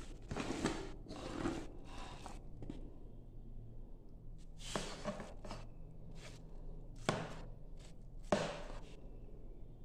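Rustling plastic sheet and scraping as fermented rice mash is scooped into a plastic bucket, with a few short sharp knocks and scrapes from the spoon and container from about the middle to near the end.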